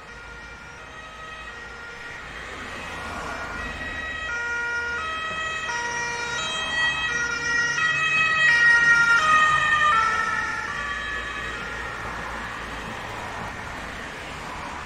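Ambulance siren switching back and forth between two pitches as the vehicle passes by. It grows louder as it approaches, is loudest about nine seconds in, then fades as it pulls away, its pitch dropping as it goes past.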